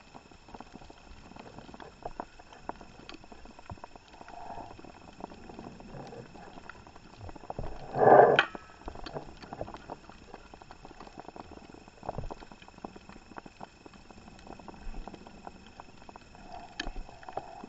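Underwater reef ambience: a steady crackle of many short, irregular clicks, typical of snapping shrimp. About eight seconds in there is one loud rush lasting about half a second.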